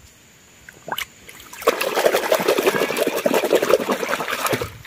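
Water sloshing and splashing in a plastic basin as a hand swishes a muddy toy bus through it to wash it. It starts about a second and a half in and runs for about three seconds.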